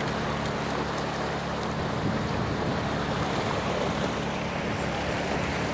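Rushing river water with the steady hum of a small generator engine running on an electrofishing pontoon boat.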